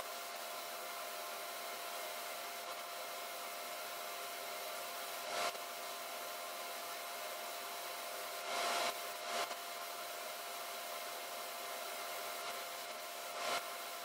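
Steady rushing air of a spray booth with a faint steady hum, broken a few times by short, louder hisses of a gravity-feed spray gun spraying white paint.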